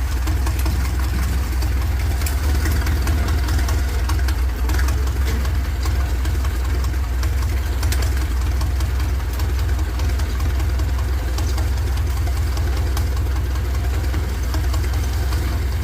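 An engine running steadily at idle, with a strong low drone and a fast, even ticking over it.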